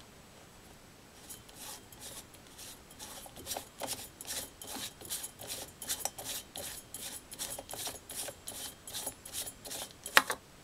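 Short metal-on-metal scraping rubs, about two or three a second, as the steel displacer of a rhombic Stirling engine is twisted back and forth by hand to work it out of its cylinder. One sharper, louder scrape comes near the end.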